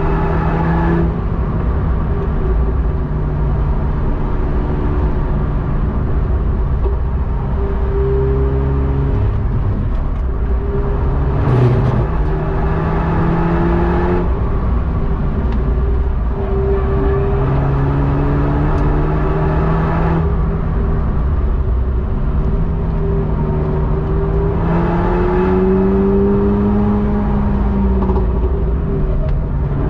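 Renault Mégane RS Trophy-R's 1.8-litre turbocharged four-cylinder engine heard from inside the cabin at racing pace, its pitch rising and falling again and again as it accelerates and backs off, over steady road and tyre noise. A brief knock stands out about twelve seconds in.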